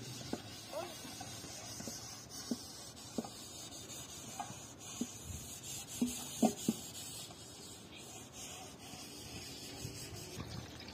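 Kitchen work: a steady hiss with light clinks and knocks scattered through it, a few louder ones together about six seconds in.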